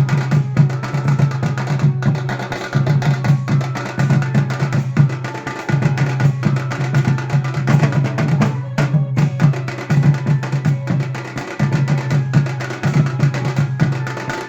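Bawal-style band music: a local Indian dhumal band playing a song, with fast, dense drumming over a strong, steady bass note that shifts every second or two, and a melody above.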